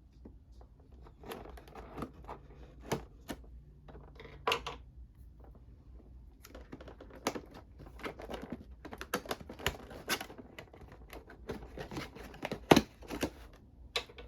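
Cardboard figure box and plastic packaging being handled: a string of taps, clicks and crinkles, sparse at first and busier in the second half, with one sharper knock near the end.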